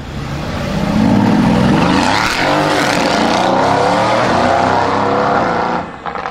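Straight-piped Mercedes-AMG GT S with modified downpipes accelerating hard, its twin-turbo V8 exhaust loud and rising in pitch. It drops away sharply near the end.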